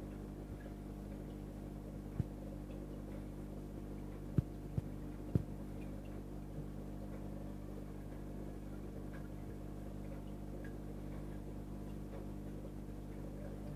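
Steady low hum of a marine reef aquarium's pumps and powerheads, with a few short knocks about two seconds in and again between four and five and a half seconds.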